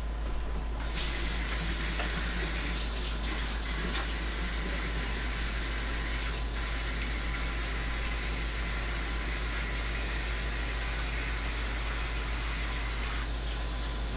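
Kitchen faucet running steadily into the sink while hands are washed under it; the water comes on about a second in.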